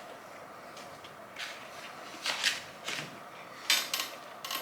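A meal being handled at the table: a few scattered light clicks and rustles from utensils, paper plates and food, clustered near the middle and end.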